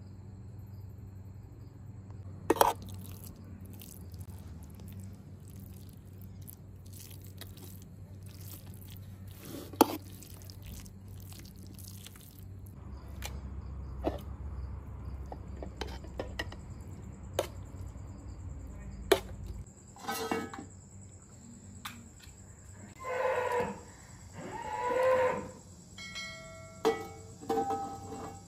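A few sharp clinks of a metal spoon against a metal mixing bowl over a low steady hum, then two long animal calls, about a second each, near the end.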